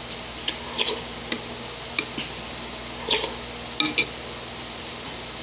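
Metal spoon clinking and scraping against a ceramic bowl of rice in water, with soft wet eating sounds: about eight short, separate sounds, a few of them ringing briefly, over a steady low hum.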